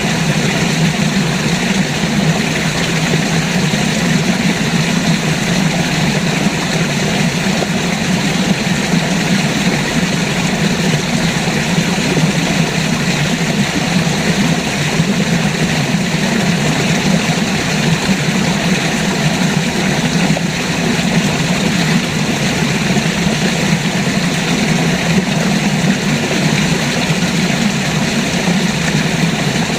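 River water rushing steadily: a constant, even wash of noise with a deep rumble underneath and no breaks or changes.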